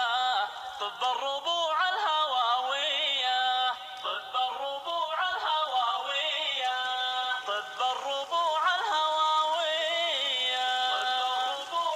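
Music from an Arabic Bedouin-style song: a wordless, ornamented melody line that bends and wavers in pitch, with short pauses between phrases.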